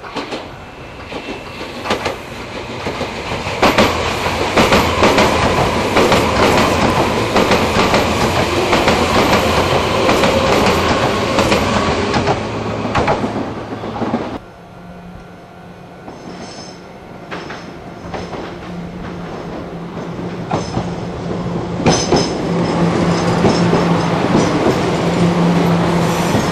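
A Meitetsu 2000-series μSKY electric train runs through the station, with wheels clacking over the rail joints, and its noise stops abruptly about 14 seconds in. A red Meitetsu Panorama Car train then runs in alongside the platform, its running noise with a low steady hum growing louder toward the end.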